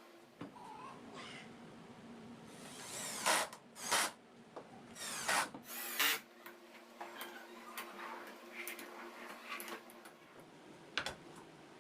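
Power drill running in four short bursts of about half a second each, as when driving screws, with clicks and knocks from handling parts between them.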